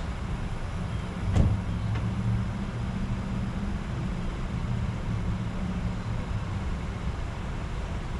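Sport motorcycle engine idling with a steady low hum, and one sharp knock about a second and a half in.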